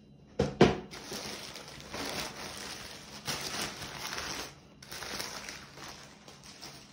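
Packaging of a cordless wet/dry vacuum cleaner being opened and handled: a sharp knock about half a second in, then several stretches of rustling with short pauses.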